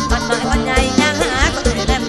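Live mor lam band music: a fast, steady drum beat of about four strokes a second under a wavering melody line.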